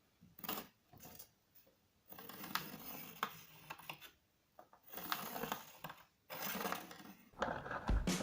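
Scattered light clicks and scraping of hand tools handled on wood while parts are measured and marked out. Background music with a steady beat comes in near the end.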